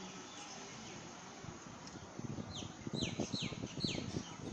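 A bird calling a quick run of four falling whistled notes, about a third of a second apart, a little under three seconds in, over a low irregular rumble that grows loud about two seconds in.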